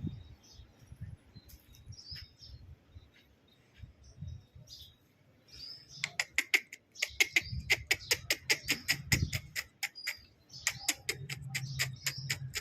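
Birds chirping: scattered faint calls at first, then a fast run of sharp, high chirps, several a second, from about halfway through.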